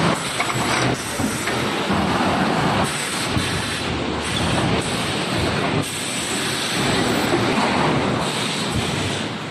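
Industrial machinery running: a dense, steady mechanical noise with hiss.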